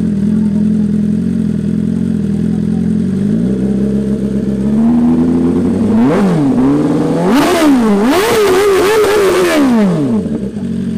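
BMW S1000RR inline-four with an Arrow titanium full-system exhaust, idling and then revved hard in a quick series of throttle blips from about six seconds in. The pitch rises and falls with each blip, then settles back to idle shortly before the end.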